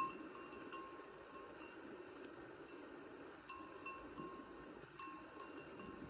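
A small animal bell clinking in short runs of soft metallic dings, the loudest right at the start, over the faint even rush of a stream.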